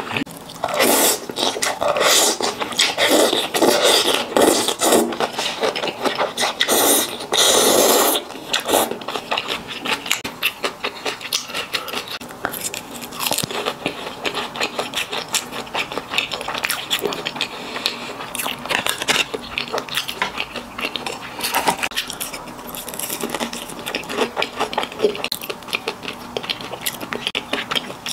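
Close-miked eating of sesame-sauce mala tang noodles: loud, busy slurping and chewing for about the first eight seconds, then quieter chewing with a steady stream of small wet mouth clicks.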